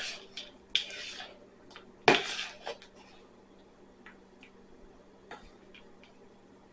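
Spoon clinking and scraping against a bowl while slime ingredients are mixed: a few sharp clatters in the first three seconds, the loudest about two seconds in, then a few faint light taps.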